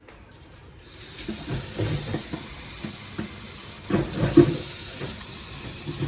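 Water running hard from a newly fitted tap and splashing into a sink, coming on about a second in.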